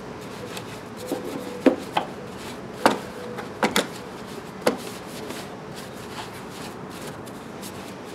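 Soft-bristled brush scrubbing a wet, greasy plastic engine cover, with several sharp, irregular knocks and taps as the brush strikes the plastic, most of them in the first five seconds.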